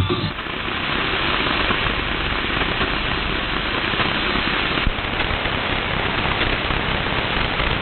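Shortwave receiver static: a steady hiss of band noise from an AM receiver tuned to 15.250 MHz with no programme audio, after the station's broadcast has closed. A faint click comes about five seconds in.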